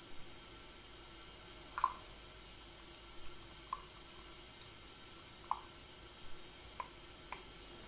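Hot water dripping and trickling from a bamboo tea ladle into a ceramic tea bowl: several separate drops land with small plinks, the clearest about two seconds in. Under them is a faint steady hiss from the kettle simmering on the brazier.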